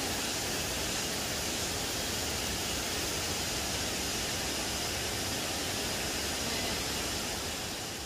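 Steady rushing noise of flowing water from a forest stream, fading out near the end.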